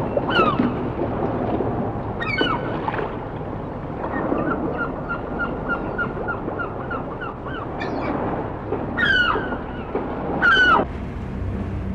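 Birds calling: loud, short falling cries, and a quick run of about five repeated notes a second, over a steady rushing noise. The calls and the noise cut off abruptly about a second before the end, leaving a low hum.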